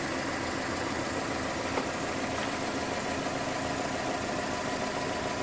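An engine idling: a steady, even hum that holds unchanged throughout, with faint steady tones above it.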